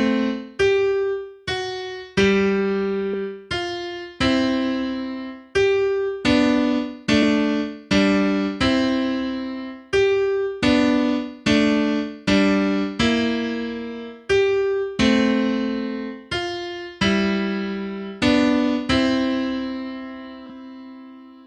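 Piano playing a simple beginner's piece in three-four time, a melody over left-hand notes, struck note by note at a moderate pace with each note fading after it is struck. Near the end it stops on a final chord that rings and dies away.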